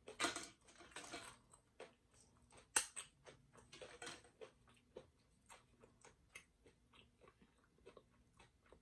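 Tortilla chips crunching and being chewed close to the microphone, with a sharp crack about three seconds in as a chip snaps. After that, quieter scattered chewing clicks.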